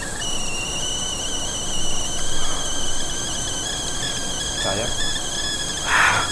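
A steady, high-pitched, slightly wavering whistling sound effect, with a short burst of hiss about six seconds in.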